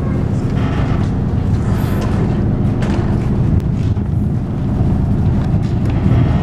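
Steady low rumble of a harbour cruise boat's engine, with faint steady droning tones.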